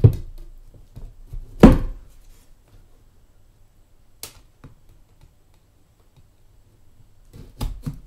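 A cardboard box being handled while it is opened with a knife: a few thuds and knocks, the loudest about a second and a half in, a faint click near the middle, and a quick cluster of knocks near the end.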